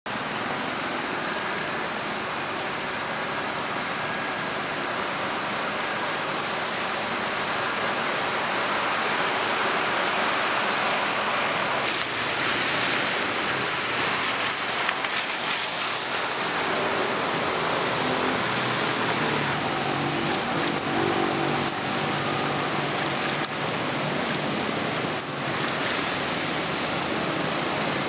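Steady hiss of rain and traffic driving through floodwater, tyres splashing through the water; an engine can be heard passing about two-thirds of the way through.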